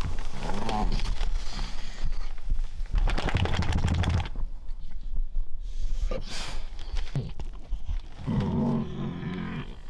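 Weimaraner in labour groaning several times, a short groan about half a second in and a longer one near the end. In between comes a burst of rustling and flapping as she shakes and shifts on the fleece bedding.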